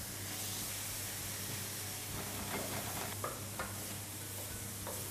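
Diced mushrooms and chicken fillet sizzling in oil in a frying pan, stirred with a spatula; a steady frying hiss.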